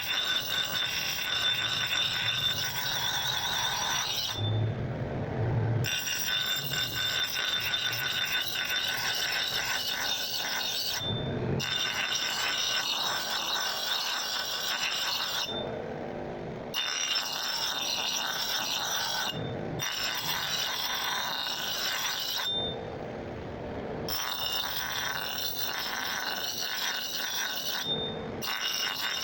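Power abrasive tool working steel: a steady high whine with scraping as the axe metal is ground. The whine cuts out briefly several times.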